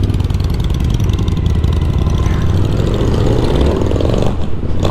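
Suzuki V-Strom 1050XT's V-twin engine running as the motorcycle pulls away and rides through town traffic, the engine note rising about three seconds in.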